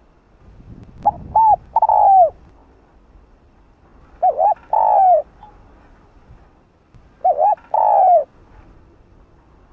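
Spotted dove cooing: three calls about three seconds apart, each two short coos followed by a longer coo that falls in pitch at its end.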